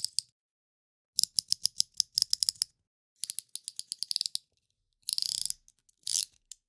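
Snap-off utility knife's blade slider clicking through its ratchet notches: two quick runs of about half a dozen clicks a second as the blade is slid along, then two short scraping swishes and a final click.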